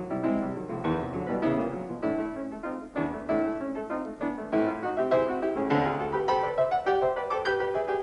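Background piano music, a busy run of quick notes.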